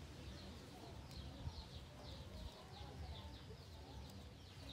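Small bird chirping in a steady series of short, high, falling notes, about three a second, over a faint low hum.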